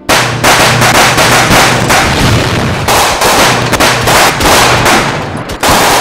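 Film battle sound effects: heavy rifle fire and blasts in a dense, nearly unbroken run that starts suddenly, with a short lull about three seconds in.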